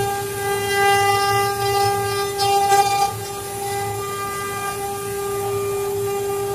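CNC engraving machine's spindle running with a steady high-pitched whine. It is a little louder and rougher for the first three seconds, then settles slightly quieter.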